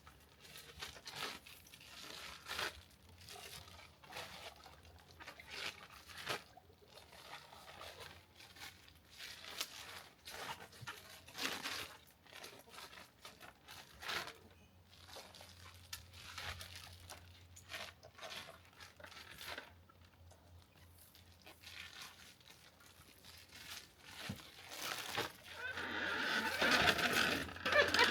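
Irregular crinkling and crunching of plastic poultry shrink bags and wet chicken carcasses being handled and bagged. A louder, busier stretch of handling noise comes near the end.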